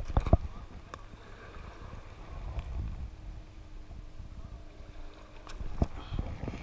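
Low wind and handling rumble on a body-worn camera's microphone, with a few sharp crunches of footsteps on beach gravel near the start and again near the end.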